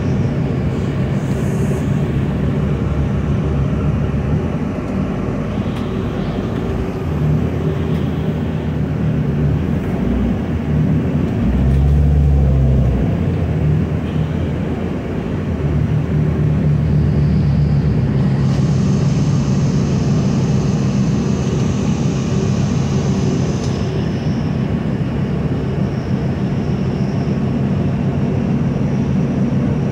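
New Flyer D40LF diesel transit bus running, heard from on board: a steady engine drone with road noise that deepens and grows louder for a second or so about twelve seconds in. A thin high whine sounds for about five seconds past the middle.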